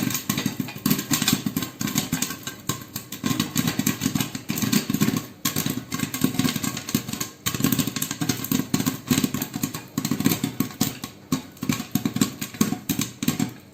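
Popcorn kernels popping rapidly in hot oil in a covered pot: a dense, irregular patter of pops.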